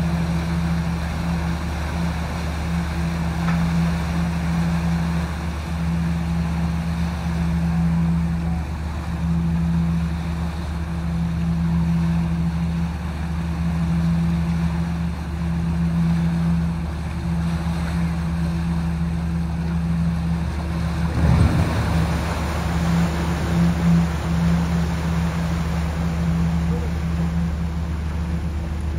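Large engine running steadily, a constant low drone with a hum. About three-quarters of the way through comes a brief louder rush of noise.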